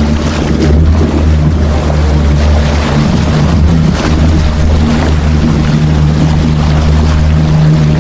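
Homemade micro speed boat running on the water, its motor holding a steady note over the rush and splash of water.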